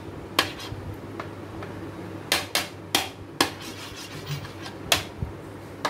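A serving spoon clicking and scraping against a plate while cream is spread on it, with about six sharp clicks at uneven intervals.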